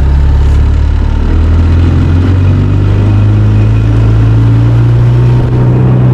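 Boat motor running loud and speeding up, its low engine note rising steadily in pitch.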